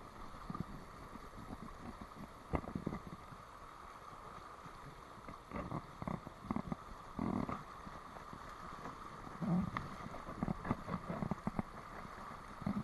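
Rushing water of a shallow stream riffle, a steady rush with scattered knocks and bumps over it.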